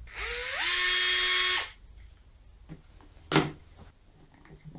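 Fanttik NEX L1 Pro electric screwdriver's motor and gearbox run for about a second and a half, whining up in pitch as it spins up, then holding steady before stopping sharply. A single sharp knock follows about two seconds later.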